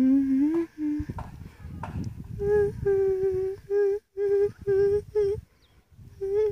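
A single voice humming a tune in a string of held, evenly spaced notes, with a low rumble underneath.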